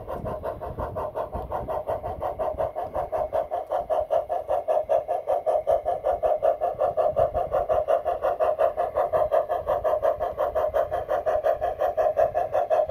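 Garden-railroad model Climax locomotive running, with a rapid, even chuffing that grows louder about three seconds in.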